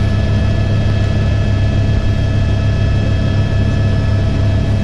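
Helicopter in flight, heard from inside the cabin: the loud, steady drone of rotor and engine, with several steady whining tones above it.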